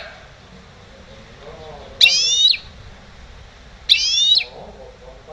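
Goldfinch × canary hybrid (mule) singing: two short, bright, high phrases about two seconds apart, each lasting about half a second.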